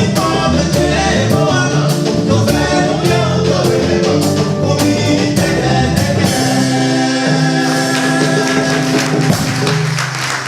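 Song with singing voices over a band with a steady percussion beat. About six seconds in, it moves to long held closing notes that fade near the end.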